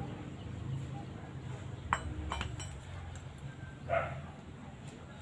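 Light metal clinks from hand tools knocking on a car jack, a few sharp ticks in the middle, and a dog barking once near the end.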